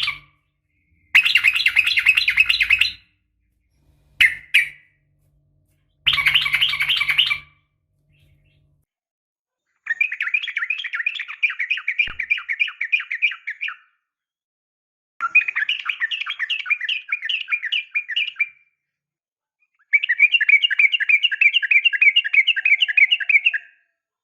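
Yellow-vented bulbul (trucukan) calling in six runs of fast repeated chattering notes, with short silent gaps between them; the last three runs are longer, about three to four seconds each. It is a lure recording of what is sold as a female calling a male.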